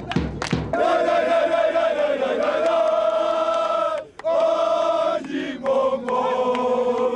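A big Turkish davul drum strikes a few times, then a group of men sing a football chant in long, drawn-out notes, breaking off briefly twice.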